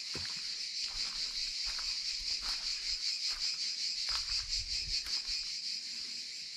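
Cicadas buzzing in a steady high-pitched chorus that pulses rapidly, with a few soft clicks and low thumps underneath.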